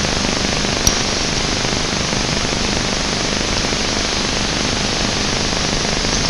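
Loud, steady hiss of static from a scrambled satellite TV channel's sound, with a single click about a second in.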